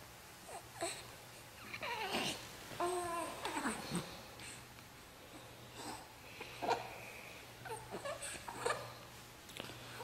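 Newborn baby fussing with short whimpering cries, the longest about three seconds in, over a low steady hum.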